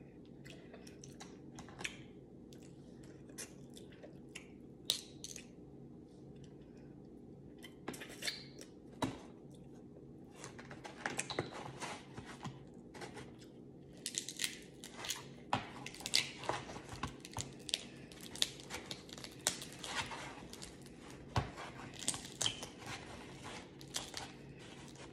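Hands peeling shrimp and picking through a seafood boil in a paper-lined tray: small cracks, clicks and crinkles of shell and paper. They are sparse at first and come thick and fast from about ten seconds in, over a steady low hum.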